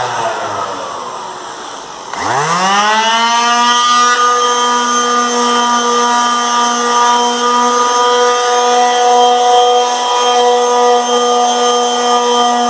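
Handheld electric sander winding down, then switched back on about two seconds in, spinning up quickly and running at a steady high-pitched whine while sanding dried spackle on a wall.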